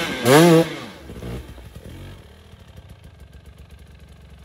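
Enduro motorcycle engine revving hard once near the start, its pitch rising and then falling, then dropping back to a quiet, low, steady running as the bike stops on the snowy climb.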